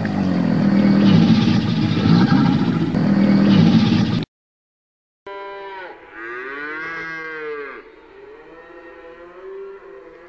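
A crocodile growling, loud and rough, for about four seconds. After a short break a cow moos: one long call that rises and falls in pitch, then fainter lowing.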